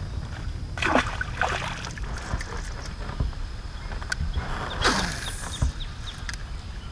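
Steady low wind rumble on a small fishing boat, with a splash about a second in as a bass is dropped back into the pond. A second brief rushing burst comes near five seconds, among scattered small clicks from rod and reel handling.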